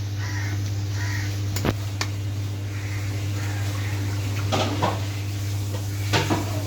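A steady low hum with a few sharp knocks and clinks, a handful of separate strikes spread over several seconds.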